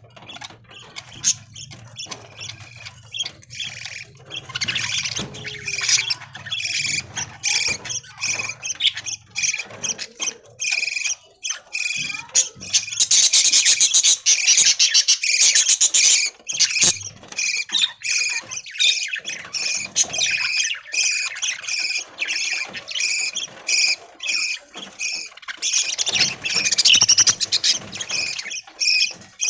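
A flock of budgies chattering, with many rapid chirps and squawks overlapping, loudest about halfway through. A low hum sits underneath for the first few seconds.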